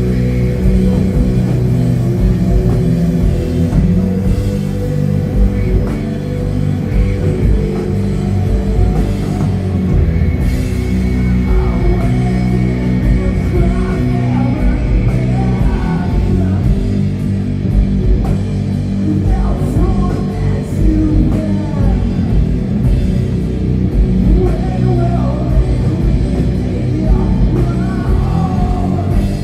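A doom metal band playing loud and live, with heavy guitars, bass and drums.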